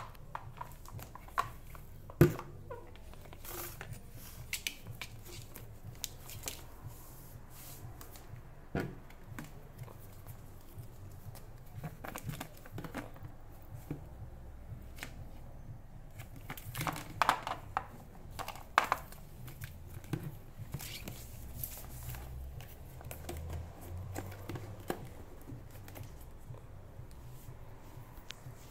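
Plastic swing-lid trash can being knocked about on a tile floor by a kitten playing in it: irregular clacks, knocks and scrapes of plastic. The loudest knocks come about two seconds in and in a cluster around seventeen to nineteen seconds in.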